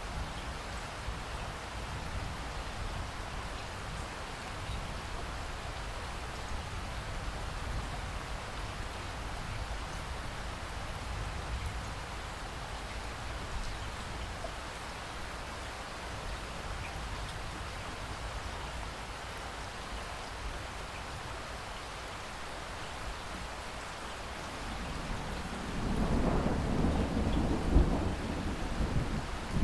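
Steady rain falling. Near the end, distant thunder begins to rumble, low and building.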